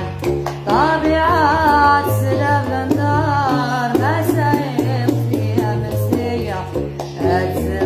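A woman singing a Gnawa song in a long wavering melodic line, over a guembri (sintir) bass lute plucking a repeating low bass pattern with light percussive taps.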